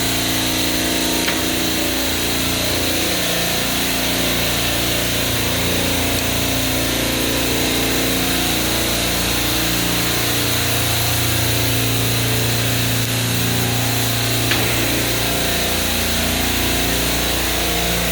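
Hill Phoenix refrigeration rack's compressors running, a steady loud machine drone with several hum tones over a constant hiss. A compressor has just been restarted and is building pressure.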